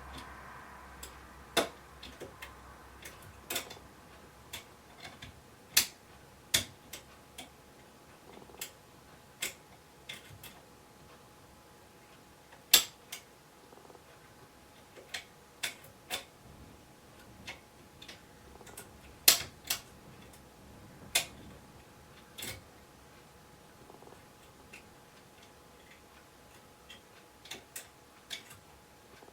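Homemade picking tools clicking against the levers inside an ERA Fortress lever sashlock as it is picked: irregular sharp metal clicks, a few louder than the rest.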